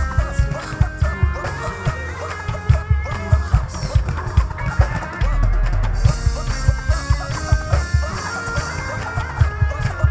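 Live band playing an instrumental passage of a slow R&B song: drum kit and bass keeping a steady beat under a melodic line from guitar or keys.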